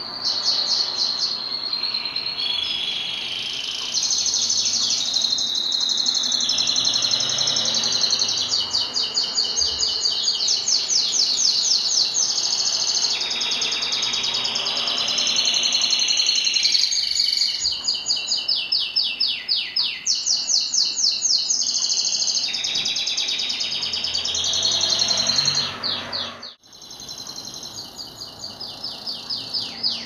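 Domestic canary singing a long, continuous song of rapid, high-pitched trills and rolls that change from phrase to phrase. There is a brief break near the end before the song resumes.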